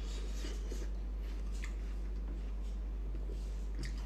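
Faint wet crunching of a person biting into and chewing a slice of watermelon, over a steady low hum.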